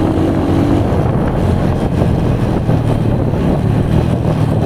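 Honda Grand single-cylinder four-stroke engine, swapped into a Honda Win 100, running steadily while the motorcycle rides along, with wind rushing over the microphone. A steady higher engine note drops away about a second in.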